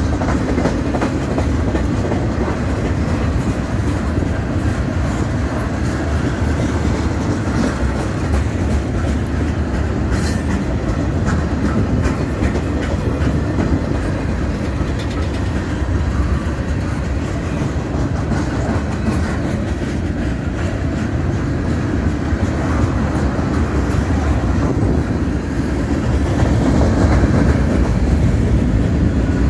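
Freight cars of a mixed manifest train rolling past: a steady rumble of steel wheels on the rails with clickety-clack, growing a little louder near the end.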